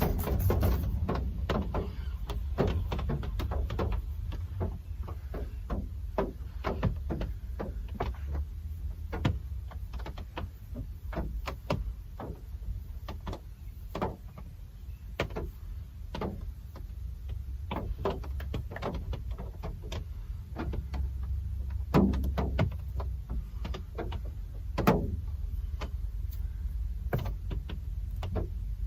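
Real rain falling over a steady low rumble, heard as many irregular drips and taps. Two louder knocks come about three seconds apart in the later part.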